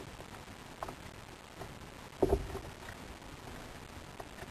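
Wind and sea noise around a small kayak, with a few scattered knocks and clicks and a louder cluster of knocks about two seconds in.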